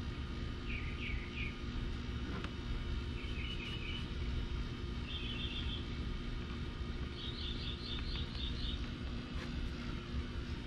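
A small bird calling in short trills of quick repeated chirps, five times, the longest trill near the end, over a steady low hum.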